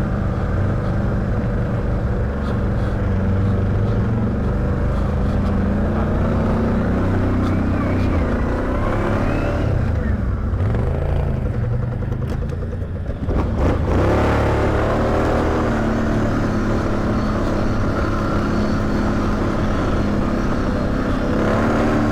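ATV engine running steadily under way on a trail. About ten seconds in the engine eases off, and it picks up again on the throttle about four seconds later.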